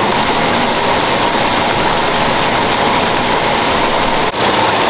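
Curry sauce with vegetables boiling in a frying pan: a steady, dense bubbling hiss that dips briefly about four seconds in.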